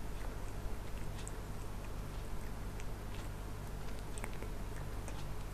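A cat licking its fur while grooming: faint, scattered small wet clicks of the tongue, over a steady low hum.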